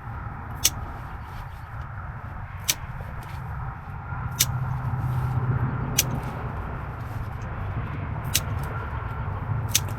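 Wire cutters snipping through old camera cables one at a time: about six sharp snaps spaced a second or two apart, over a steady low rumble.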